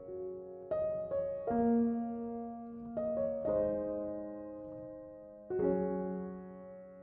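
Background music: slow, soft piano, notes and chords struck a few times and left to ring and fade.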